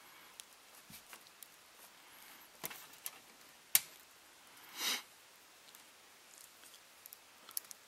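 Quiet handling noises as a wire rope cable clamp and vinyl-coated steel cable are worked by hand: scattered small clicks and taps, one sharp click near the middle, and a brief rustle just after it.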